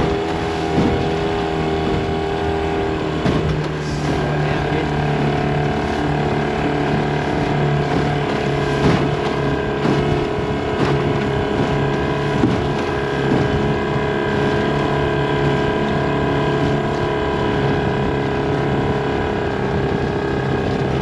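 Outboard motor of a small aluminium dinghy running steadily at trolling speed, its note shifting slightly a few seconds in, over the rush of water past the hull. Now and then a short knock, as the hull slaps the chop.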